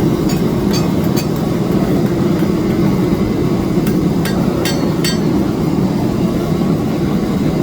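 Forge running with a steady, low rushing noise while a knife blade heats to critical temperature for hardening. A few sharp metallic clinks with a short ring sound over it, a cluster of them about four to five seconds in.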